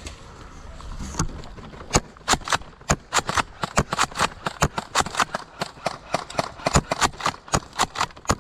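Footsteps of a person walking briskly or jogging, about three steps a second, starting about two seconds in.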